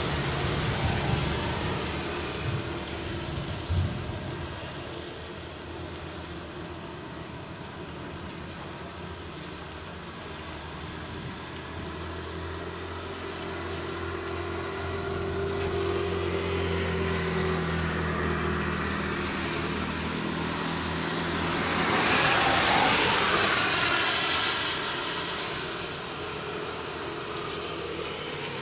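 Motor vehicle traffic: an engine running steadily, then a vehicle passing close, its noise swelling about 22 seconds in and fading a few seconds later.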